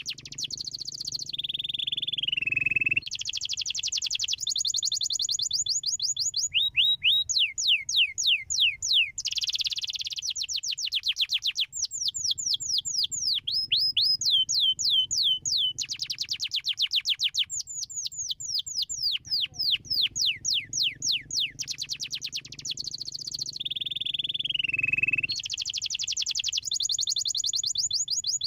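Domestic canary singing a long, continuous song of rapid trills: runs of quick, high, downward-sweeping notes repeated at changing speeds, broken twice by a lower, slurred whistle. A low hum sits under parts of the song.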